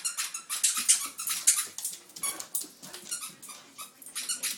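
A dog chewing a squeaky toy, setting off a rapid, irregular run of high-pitched squeaks.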